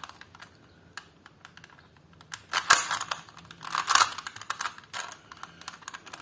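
A 3x3 Rubik's cube being turned by hand during a solve, its plastic layers clicking and clacking. A few scattered clicks come first, then quick runs of turns from about two and a half seconds in.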